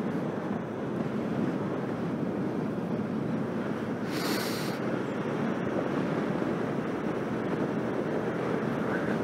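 Wind rushing over a helmet-mounted camera's microphone on a moving motorcycle, a steady roar with muffled road and engine noise beneath it. A brief sharper hiss about four seconds in, as the rider turns his head to the side.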